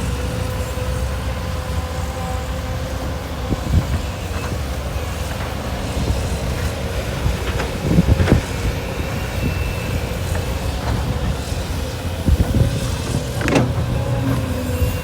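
Large hydraulic excavator's diesel engine running steadily under load with a constant hydraulic whine, broken by several heavy knocks and clanks from the working machinery and the loading.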